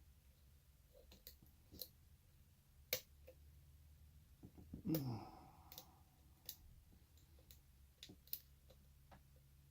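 Lock pick and tension wrench working the pins of a shutter lock: faint, irregular single clicks and ticks as the pins are set. A brief falling-pitched vocal sound, like a sigh, about five seconds in.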